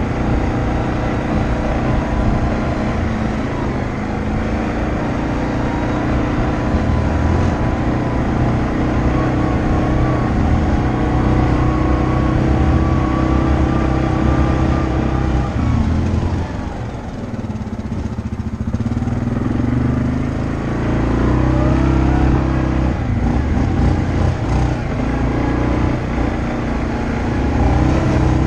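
ATV engine running under load on a rough off-road trail, dropping off a little past the halfway point and then revving back up.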